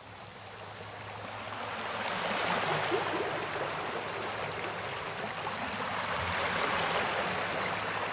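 A steady rushing noise like running water, with no music or tone in it, swelling about two seconds in and again near the end.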